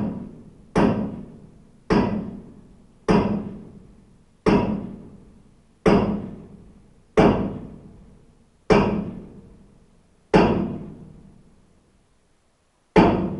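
Hammer blows on a grain dryer fan's cast iron hub, about one a second, each ringing out metallically. The blows space out towards the end, with a longer pause before the last one.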